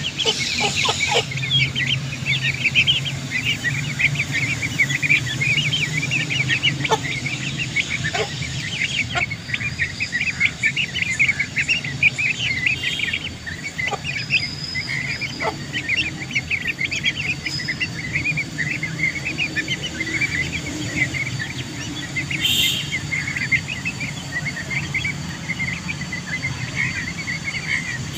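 A brood of chicks peeping continuously as they feed, many short high cheeps overlapping, with a low steady hum underneath.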